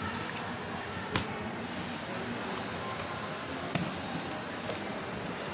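Two short, sharp clicks about two and a half seconds apart over a steady background hiss.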